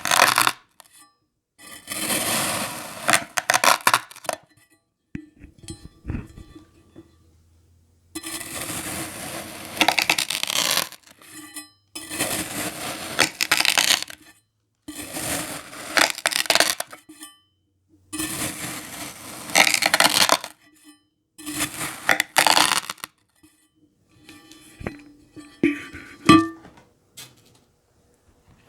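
Crunchy kinetic sand crunching and crackling as it is worked, in a series of bursts of a second or two each, with short silent gaps between them. Fainter scattered clicks come near the end.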